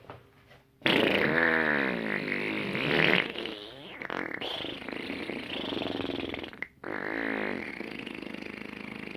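Fart noises: a long, wobbling, buzzy tone that bends up and down in pitch, in three drawn-out stretches with short breaks between them.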